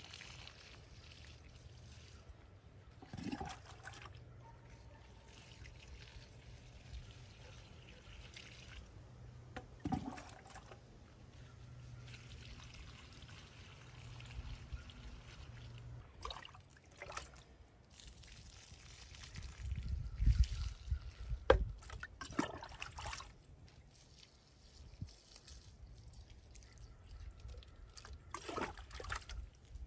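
Water poured from a plastic cup onto the soil at the base of a garden plant, trickling and splashing softly, with a few short knocks and rustles. Near the end the cup is dipped into a plastic bucket of water. The loudest sounds are low thumps and rumbling about two-thirds of the way through.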